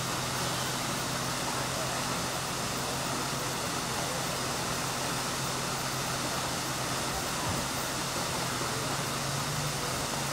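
Steady rushing of a muddy, rain-swollen waterfall heard from inside a car, with a low, even hum of the car's idling engine underneath.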